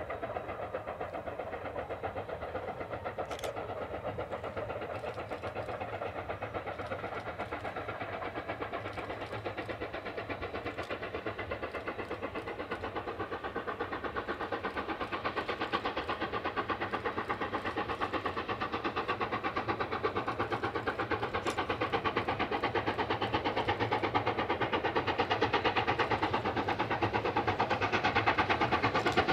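Steam locomotive approaching under power, its exhaust beat coming as a fast, steady rhythm of chuffs that grows steadily louder.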